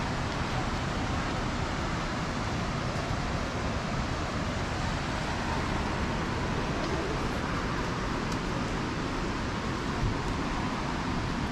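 Steady rush of water from the creek's rapids, an even noise with no breaks.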